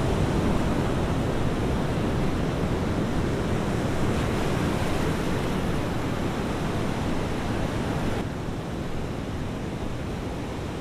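Steady rush of sea surf on the shore with wind, turning slightly duller about eight seconds in.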